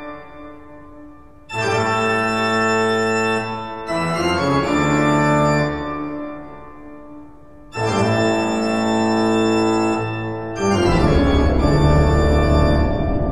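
Organ music: about four loud, sustained chords, each starting abruptly and fading before the next. The last chord, beginning near the end, carries a deep bass.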